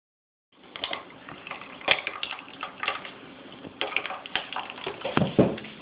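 Pork chop being chewed and gnawed at the bone: irregular wet crunches, clicks and smacks.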